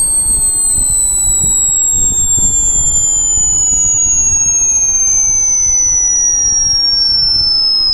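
Hearing-test frequency sweep: a pure, high-pitched test tone sliding slowly and steadily lower in pitch, with fainter extra tones gliding alongside it.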